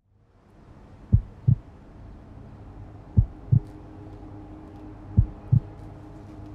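Heartbeat sound effect: slow paired low thuds, lub-dub, three beats about two seconds apart, over a low steady hum that fades in at the start.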